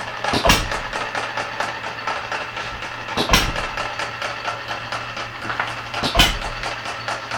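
Red Wing 1/3-scale model hit-and-miss engine running: it fires with a sharp bang three times, about every three seconds, and coasts on its flywheels between firings with a fast, light, regular clicking.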